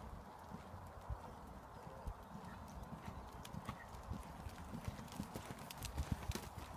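Hoofbeats of a trotting Irish Draught cross mare on a gritty arena surface: a steady rhythm of dull thuds, louder about six seconds in as she passes close, with light sharp clicks among them.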